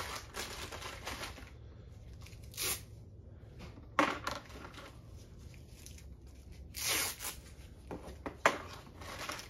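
Intermittent handling noise: plastic packaging rustling and sharp clicks as tie-down straps and small plastic parts are handled on a hard plastic case.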